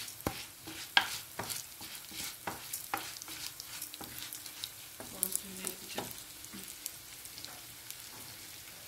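Wooden spoon stirring dry rice and melting butter in a pot on the stove: the rice rustles and the spoon knocks and scrapes against the pot about twice a second at first, then more softly, with a sizzle from the hot butter underneath.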